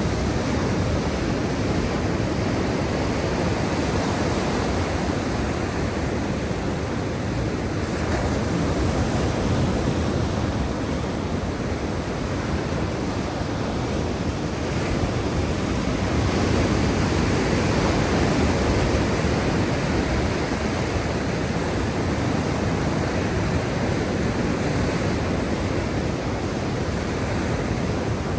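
Black Sea waves washing in a steady rush of surf, swelling a little louder about a third of the way in and again around the middle.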